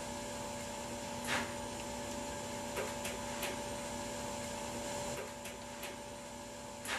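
A steady electrical hum over room hiss, broken by a few faint clicks, the sharpest just before the end.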